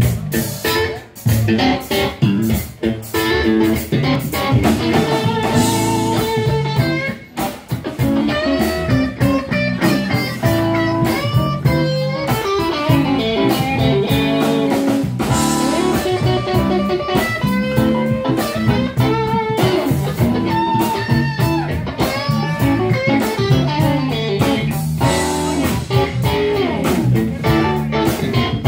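Live blues band with electric guitars, bass and drums: lead guitar playing bent-note phrases over the band. A few sharp band hits with short breaks in the first several seconds, then a steady groove.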